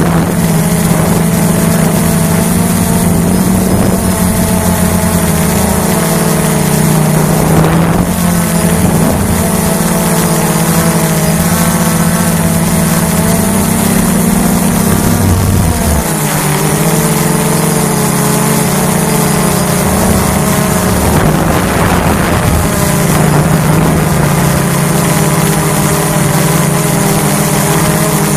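Hubsan H109S quadcopter's motors and propellers buzzing steadily in flight, as picked up by its onboard camera. The pitch shifts as the motor speeds change, most clearly a little past halfway.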